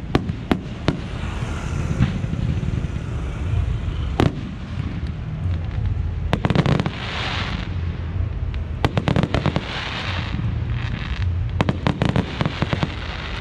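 Aerial firework shells bursting: sharp bangs scattered throughout, bunching into quick volleys in the middle and again near the end, with a fizzing hiss after some bursts.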